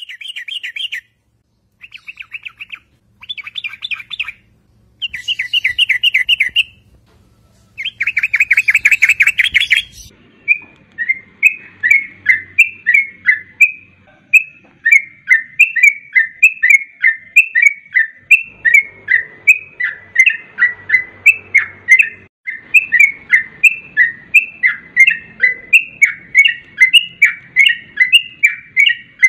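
Yellow-vented bulbul (trucukan) calling: five short bursts of rapid chattering in the first ten seconds, then a long unbroken run of short whistled notes, a few a second.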